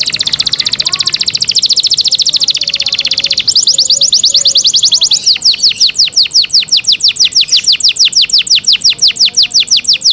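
Domestic canary singing a continuous song of trills. It opens with a very rapid rolling trill for about three and a half seconds, then changes to a slower series of falling whistled notes, about seven a second.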